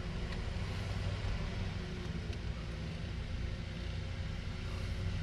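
Small oscillating electric fan running: a steady low hum with a soft rush of air.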